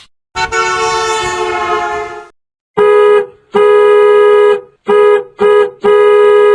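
A two-note vehicle horn sound effect: one long blast that fades away, then five honks at the same pitch in a short, long, short, short, long rhythm.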